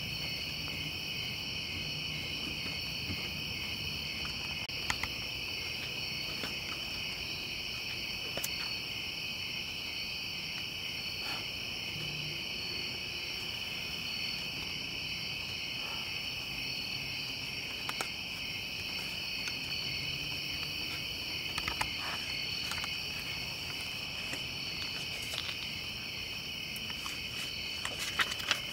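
A steady chorus of night insects, trilling without a break, with a few faint clicks and ticks now and then.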